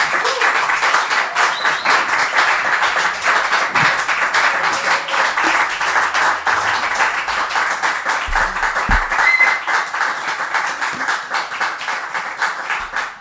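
Audience clapping and applauding after the song ends, a dense patter of many hands that eases off toward the end.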